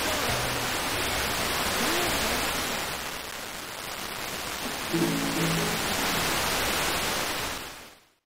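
Weak, distant FM broadcast on 78.9 MHz heard through a WiNRADIO G39DDC receiver: heavy static hiss with faint music breaking through, a little stronger about five seconds in. The audio fades out to nothing near the end.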